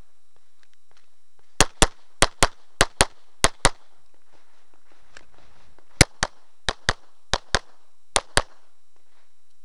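Semi-automatic pistol fired close to the microphone in rapid double-taps, two shots about a fifth of a second apart: four pairs starting about a second and a half in, a pause of about two seconds, then four more pairs.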